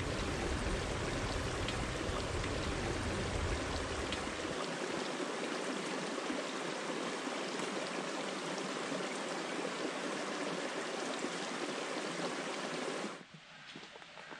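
Small mountain stream running over rocks, a steady flow of water that stops suddenly near the end.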